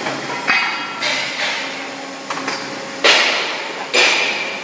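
Pneumatic clamp cuber for concrete blocks at work: a series of sharp mechanical clanks and knocks, about six in four and a half seconds, as the clamp and pushers shift hollow concrete blocks on the steel table. The loudest two come about three and four seconds in.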